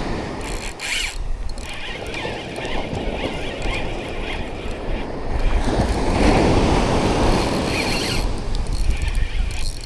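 Surf-fishing reel being worked against a hooked fish: a mechanical squeal with ratchety clicking, over wind and surf.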